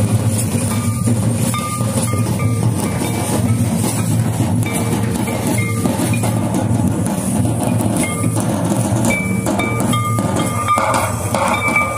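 Santali folk drums, large hand-played barrel drums, beating a steady dance rhythm, with short high ringing notes over the drumming.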